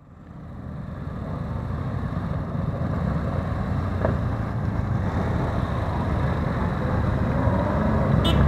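A convoy of motorcycles, many of them cruisers, riding past with their engines running steadily. The sound fades in over about the first second and a half.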